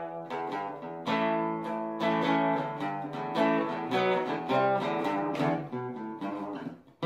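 Acoustic guitar music: a run of fingerpicked notes over a steady low bass note.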